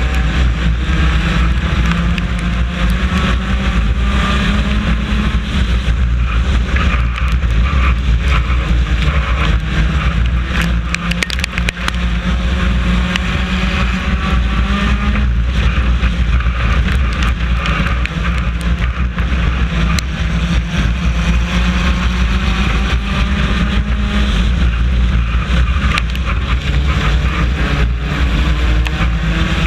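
Four-cylinder race car engine heard from inside the car, running hard under racing load, its pitch rising and falling in repeated waves as it accelerates and lifts around the track. Scattered clicks and knocks from the car come through on top.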